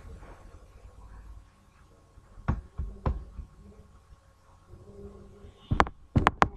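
A few light knocks and clicks from handling things at a desk: two about two and a half and three seconds in, then three close together near the end, with quiet room noise between.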